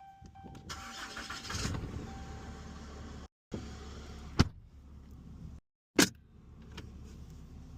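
A vehicle warning chime beeps, then a truck engine cranks and catches about a second in and runs at a steady low idle. The sound drops out briefly twice, with two sharp loud clicks between.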